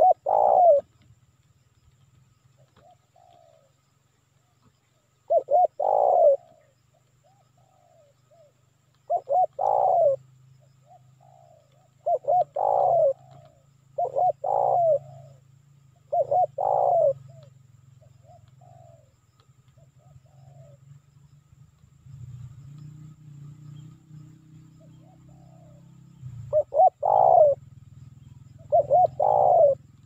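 Spotted dove (tekukur) cooing: short phrases of low, rolling coos repeated every two to three seconds, then a long pause and two more phrases near the end. A low steady hum runs underneath.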